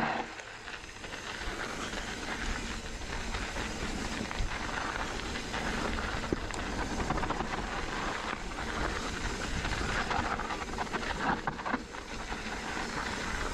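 Mountain bike riding fast down loose, rocky dirt singletrack: a steady rushing hiss of the tyres rolling over the dirt and air over the microphone, with a few sharp knocks and rattles from the bike.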